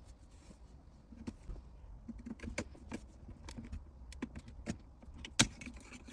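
Pliers working the metal clamp at the base of the shifter's leather boot: scattered irregular clicks, taps and scrapes of metal and plastic, with one sharp snap about five seconds in.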